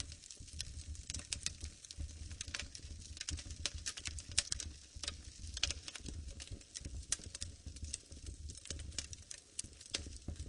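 Fireplace fire crackling, with frequent irregular sharp pops and snaps over a low, steady rumble of flames.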